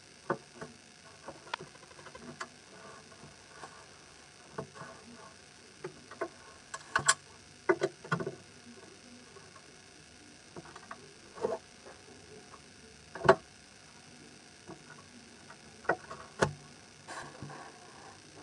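Tweezers picking up small plastic fuse beads and setting them onto a plastic pegboard: scattered, irregular small clicks and taps, a few of them sharper, about 7 and 13 seconds in.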